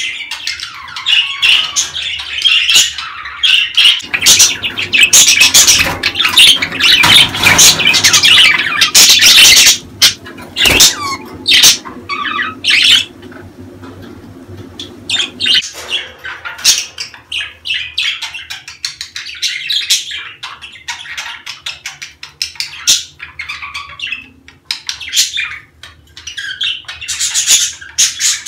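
Budgerigars chattering in breeding-season calls: a fast, overlapping run of chirps, warbles and squawks. It is busiest in the first half, thins out after about thirteen seconds, and picks up again near the end.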